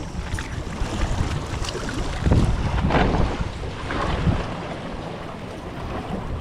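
Wind buffeting the microphone, with surf washing on the beach. The rumble swells a couple of times.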